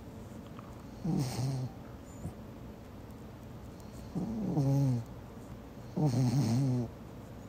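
A sleeping Pomeranian snoring: three snores with a pitched, wavering tone, each under a second long, about a second in, at about four seconds and at about six seconds.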